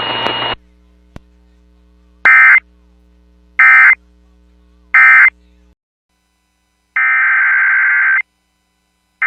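Emergency Alert System digital data bursts, the harsh buzzing of SAME audio data. Three short, evenly spaced bursts close the previous warning as its end-of-message signal. After a pause, a longer header burst of the next alert begins about seven seconds in, and another starts right at the end. A background hiss cuts off about half a second in.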